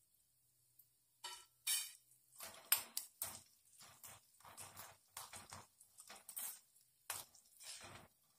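A steel spoon stirring a tempering of urad dal, mustard seeds and curry leaves frying in a small pan: irregular clicks and scrapes of the spoon against the pan, starting about a second in.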